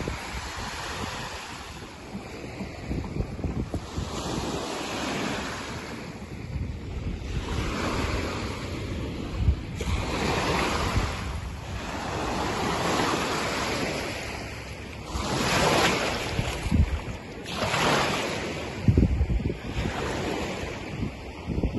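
Sea waves washing onto the shore in repeated surges a few seconds apart, with wind buffeting the microphone.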